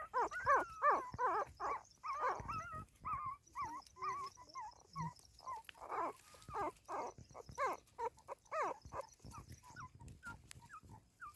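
Newborn puppies whimpering and squeaking in a continuous string of short, high, wavering cries, several a second.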